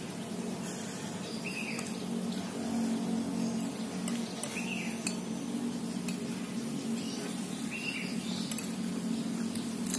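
Metal spoons clinking and scraping on plates as two people eat, with a few short sharp clinks, over a steady low hum.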